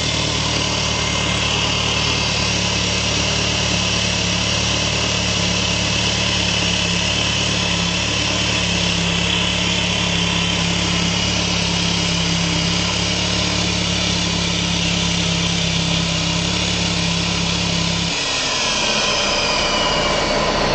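VW Golf 4 1.8T turbocharged four-cylinder running from a very cold start, with a steady low droning hum over its higher running noise: the odd noise that appears only on a fully cold engine for about a minute. About eighteen seconds in the low hum cuts off abruptly, while the higher running noise continues.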